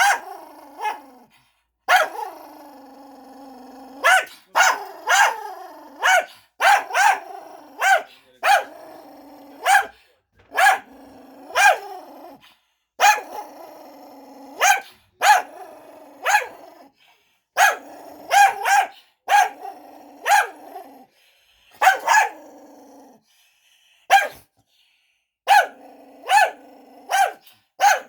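Cockapoo barking and growling in an aggressive fit, the behaviour known as cocker rage. Sharp barks come about one or two a second, with stretches of continuous growling between them.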